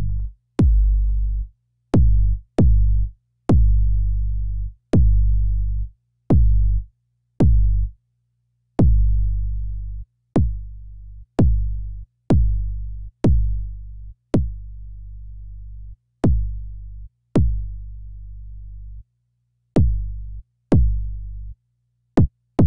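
Synthesized kick drum from Logic's ES2 synthesizer (a sine-wave oscillator frequency-modulated by a second sine oscillator, with distortion) triggered about eighteen times at irregular intervals, each hit a sharp click followed by a decaying low tone, some held longer than others as the settings are adjusted. The click at the start of each hit comes from the very short attack of the ES2's envelope 3.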